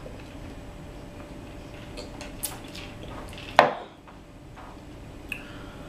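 A drinking glass handled on a table: a few light clinks, then one much louder knock about three and a half seconds in as the glass is set down, and a last small click near the end.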